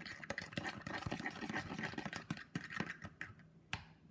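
Face-wash-and-salt slime being stirred in a bowl: a quick run of wet squishing and clicking that dies away about three seconds in, then a single sharp click near the end.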